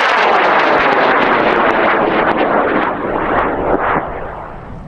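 High-power rocket's Aerotech M1297 solid motor burning after liftoff, a loud rough roar heard from the launch line. It fades over the last second or so as the rocket climbs away.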